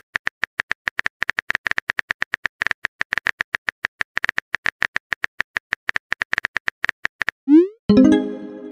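Simulated phone-keyboard typing clicks from the Texting Story app, a quick irregular patter of several clicks a second as a message is typed. Near the end, a short rising swoop and a brief fading tone: the app's message-sent sound.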